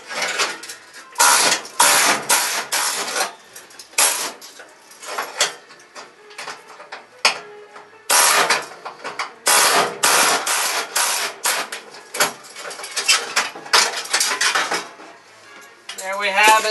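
A rusty, spot-welded sheet-metal panel on a 1974 Plymouth Duster being pried and wrenched loose: a rapid, irregular series of metallic scrapes and clanks as the thin steel tears free of its spot welds.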